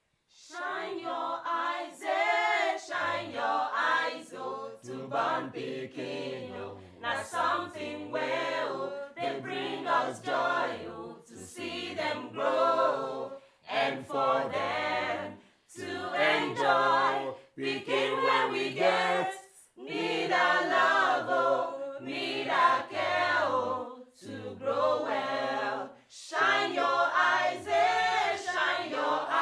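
A choir singing without instruments, several voices in harmony in phrases with short breaks, starting about half a second in.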